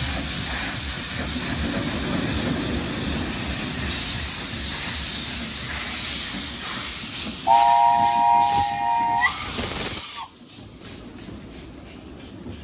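Narrow-gauge steam locomotive running close by, with a loud, steady hiss of steam jetting from its open cylinder drain cocks. About seven and a half seconds in it sounds its chime steam whistle once, a chord of several close tones held for about two seconds that bends upward as it ends. Just after that the hiss drops off abruptly to a quieter passing with faint regular knocks.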